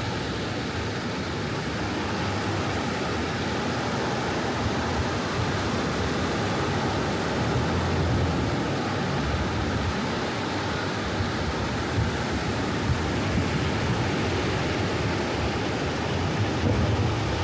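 Gentle ocean waves washing onto a beach: a steady hiss of surf that swells and eases, rising about halfway through and again near the end.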